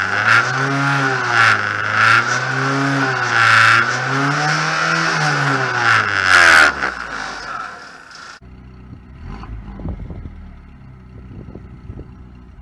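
Ford Focus rally car's engine heard from inside the cabin, revving up and dropping back about three times as the car accelerates and changes gear. About eight seconds in, the sound cuts suddenly to a much quieter low rumble with a few knocks.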